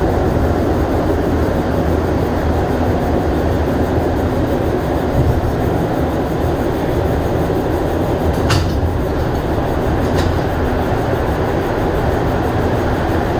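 Montreal Metro rubber-tyred MR-73 train running steadily with a heavy low rumble, heard from inside the car as it comes out of the tunnel and runs into a station. Two brief sharp clicks or squeaks sound a little past halfway and again about two seconds later.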